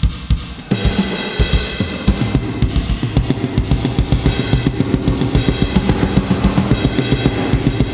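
GarageBand's Classic Studio Kit virtual drums playing back a busy drum solo: kick drum, snare, hi-hat and cymbals in rapid strokes. The cymbal wash thickens a little under a second in.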